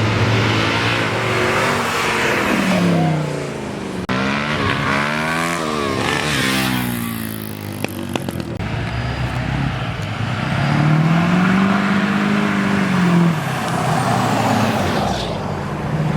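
Car exhausts revving and accelerating away, the engine note rising and falling several times. About ten seconds in comes one long rev that climbs and then drops.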